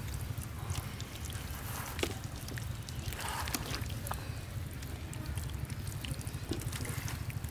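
A hand squelching and smearing raw hilsa fish steaks through a thick, wet mustard-spice paste to coat them, heard as irregular soft wet clicks and squishes over a steady low rumble.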